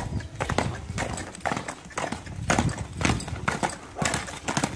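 Horse's hooves striking the ground in a quick, even rhythm of about two beats a second as a trained dancing horse steps in place.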